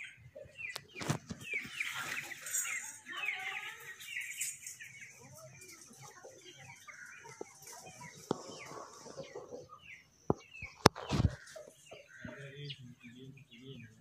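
A flock of Indian ringneck parakeets chattering: many short, sharp, downward-sliding calls, densest in the first few seconds and sparser after. A sharp click and a knock come about eleven seconds in.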